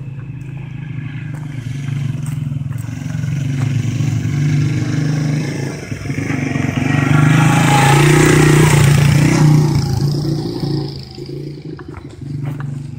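Small dirt bike's engine running as the bike rides past, growing louder as it approaches. It is loudest for a few seconds just past the middle, then fades as the bike moves away.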